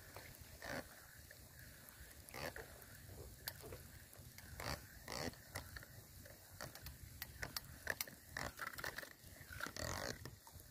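Faint handling noise from a spinning rod and reel as line is wound in: scattered soft clicks and rustles over a low wind rumble.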